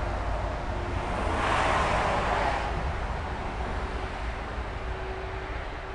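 A passing vehicle on a road: its noise swells to a peak about two seconds in and fades away, over a steady low rumble.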